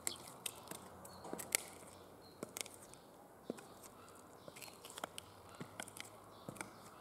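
Stiletto platform heels clicking and scuffing on a gritty concrete floor: irregular footsteps, a dozen or so sharp clicks.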